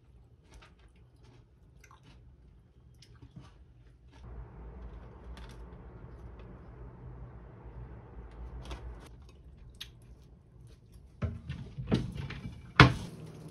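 Food-handling sounds while a sandwich is built on a metal plate: light taps and rustles as toppings go on, then three louder crunching knocks near the end as the crusty top slice is set down and pressed on.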